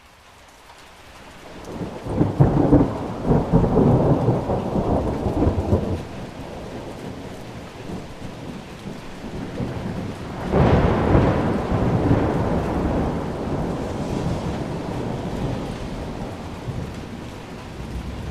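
Thunderstorm with steady heavy rain. A long, low roll of thunder swells up over the first couple of seconds and rumbles on for several seconds. A sharper thunderclap about ten seconds in then rolls away under the rain.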